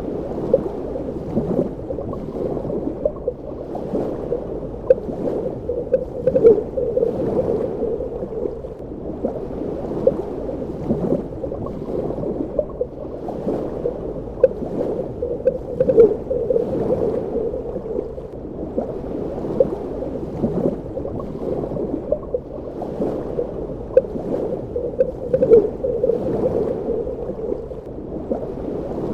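Underwater ambience: a steady, muffled churning of water, heard as if below the surface, with bubbling, gurgling and frequent small pops.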